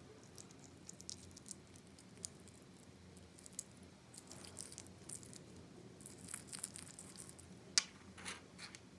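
Clear slime being stirred and pulled with a plastic stirrer in a small glass jar: faint sticky crackles and squelches, with one sharper click near the end.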